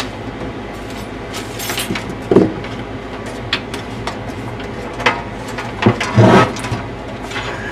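A DVD drive and computer case being handled: a handful of separate knocks and clicks, the loudest about six seconds in, over a steady low hum.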